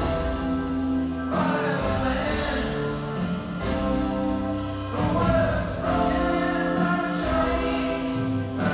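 Live rock band with singers playing in an arena: held, sung vocal harmonies over guitar and bass, the chord changing every few seconds.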